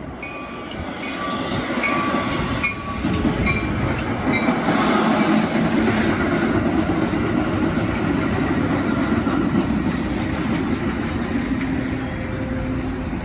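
Metra commuter train coming into the station: the rumble of the train on the rails grows louder over the first few seconds, then holds steady and loud.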